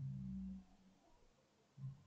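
Near silence on a voice call, with a faint low hum for about half a second at the start and again briefly near the end.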